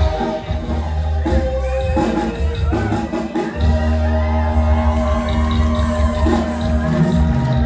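Mariachi band playing live, with long held notes over a strong, steady bass.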